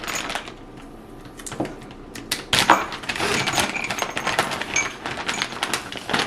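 Shifter kit parts being handled: a run of small clicks, knocks and clatter, busiest from about two and a half seconds in.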